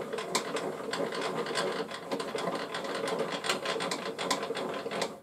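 HiKOKI C3610DRJ table saw's blade-height crank being turned to lower the blade, its mechanism giving a fast, uneven run of small clicks that stops abruptly at the end.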